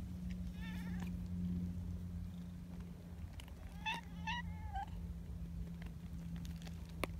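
Cat meows: a faint, wavering meow about half a second in, then three short meows in quick succession around four seconds in, over a steady low hum. A sharp click near the end.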